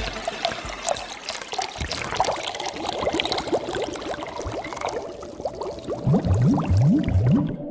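Bubbling, pouring-liquid sound effects: a steady stream of short rising bloops. Near the end come a few deeper, louder rising gulps.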